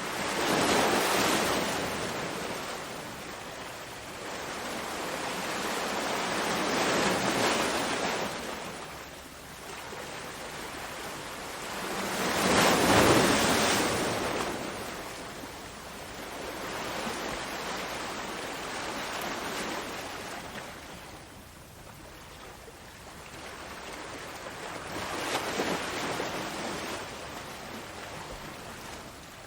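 Ocean waves breaking and washing in, each wave swelling and fading about every six seconds, the loudest one about halfway through.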